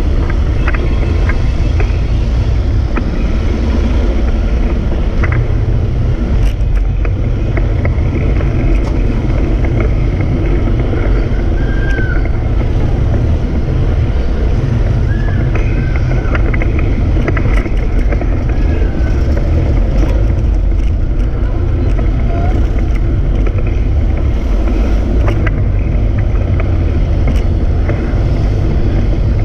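Steady low rumble of wind buffeting the microphone of a camera on a moving bicycle, mixed with the noise of street traffic: jeepneys, motorcycles and cars. It holds level throughout, with a few faint clicks and short high chirps over it.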